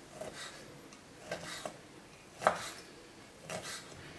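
Chef's knife dicing ham on a wooden cutting board: the blade knocks on the board in a handful of irregular cuts, the loudest about halfway through.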